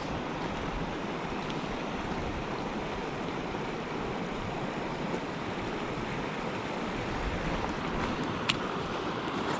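Mountain stream water rushing steadily, with a single sharp click near the end.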